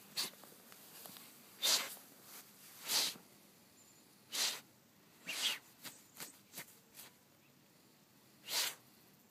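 Bull terrier snorting and sniffing hard with its nose pressed into the grass, scenting for a gopher. About half a dozen sharp blasts of breath come irregularly a second or so apart, with a few smaller sniffs between them.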